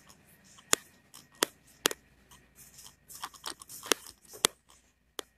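A scattered series of sharp clicks and taps, about half a dozen loud ones among many smaller ones, with light rustling between them.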